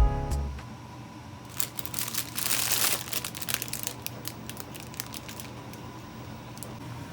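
Crinkling and crackling, a run of sharp clicks that is densest about two to three seconds in, over a faint steady hum, just after background music ends.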